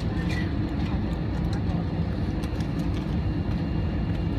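Steady low rumble of an airliner's jet engines and airframe heard inside the passenger cabin.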